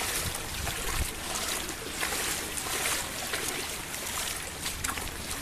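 Heavy rain pouring and water running across a flooded road, a steady dense hiss.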